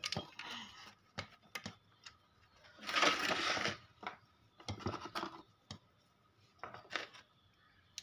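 Light metallic clicks and short scrapes of an Allen key and steel bolts being worked into the bolt holes of a high-pressure pump's crankcase, with a longer scraping rustle about three seconds in.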